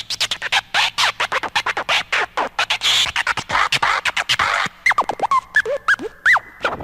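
DJ record scratching: rapid back-and-forth scratches in quick succession. About five seconds in, they give way to a few short, separate pitch sweeps that rise and fall.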